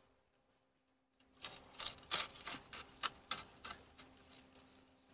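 Metal shovel scraping and raking coals and ash across the bottom of a steel fire pit, making a quick run of scrapes and clinks that starts about a second in and tapers off.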